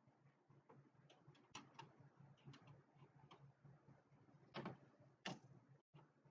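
Faint scattered clicks and light taps, with two louder clicks about four and a half and five seconds in, over a low steady hum.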